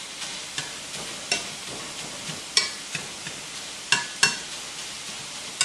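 Ground beef sizzling in a skillet while it is mashed and broken up with a metal potato masher, the masher clacking sharply against the pan about once a second over the steady sizzle.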